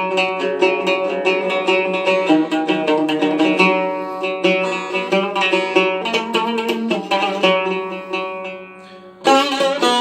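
A cümbüş, the fretless Turkish banjo-bodied lute with doubled strings, played as an instrumental melody of quick picked notes. The playing thins to a single fading note around eight seconds in, then comes back with a loud strummed stroke near the end.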